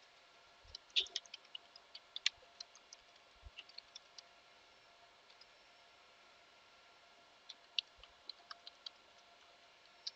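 Computer keyboard keys being typed: faint, sharp clicks in two bursts, a quick run in the first few seconds and a shorter handful a few seconds later.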